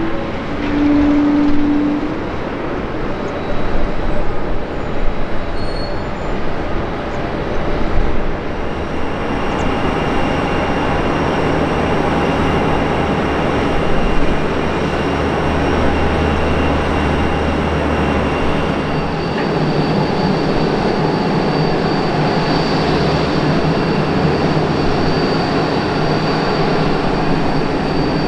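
Steady roar of jet airliner engines running on the apron, with thin whining tones that join about halfway through.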